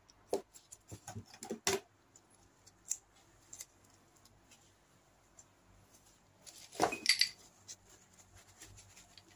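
Dropper-post parts being handled: scattered light clicks and knocks in the first two seconds, then a louder clatter about seven seconds in.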